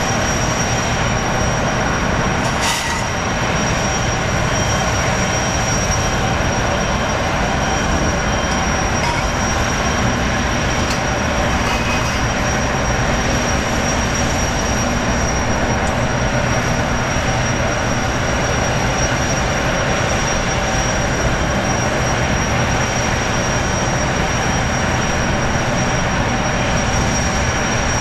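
Jetfoil gas turbines running at low speed: a steady high whine over a loud, even rush of the engines and water jets. A single sharp click comes about three seconds in.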